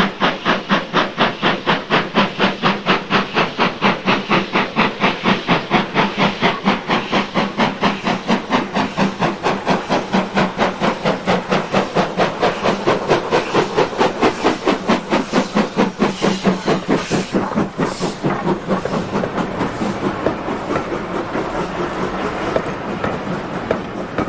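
Steam locomotive working hard, its exhaust beating rapidly at about four chuffs a second. Beyond about two-thirds of the way through, the beats blur into a steadier rush with some high hiss.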